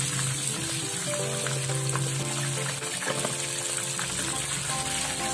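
Chicken pieces deep-frying in a pan of hot oil, sizzling steadily, with background music playing over it.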